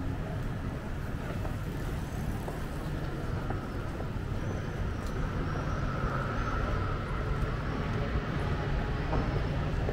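Steady rumble of road traffic on a city street.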